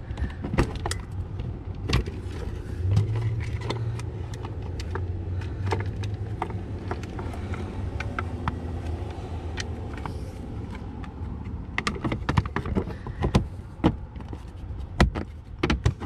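Plastic lower dash trim panel of a Freightliner Cascadia being fitted and pressed into its locking tabs: a scattered series of sharp plastic clicks and knocks, bunched up near the end, over a steady low hum.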